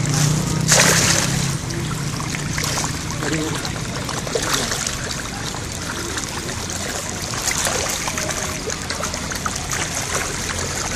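Fish thrashing and splashing at the water's surface as they compete for food at the lake edge. The splashes come in repeated bursts, the biggest about a second in.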